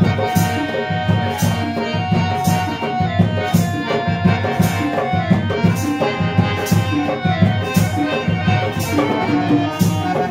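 Live instrumental music: a harmonium holds and moves between sustained notes over a steady drum rhythm, with a crisp high stroke about once a second.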